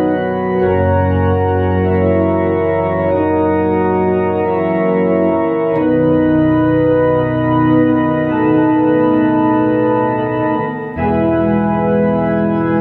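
Tokai YX 400 electronic organ on a pipe-organ registration, playing a slow hymn in sustained chords over deep pedal bass notes. The chords change a few times, with the biggest change about eleven seconds in.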